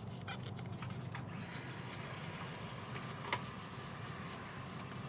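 Microfiber towel rubbing metal polish over a chrome wheel center cap, with a few light clicks early and one sharp tick about three seconds in, over a steady low background hum.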